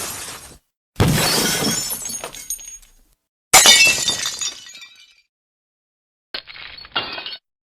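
A run of separate glass-breaking crash sound effects: two sharp smashes, each shattering and tinkling away over a second or two, then two short, duller, quieter crashes near the end.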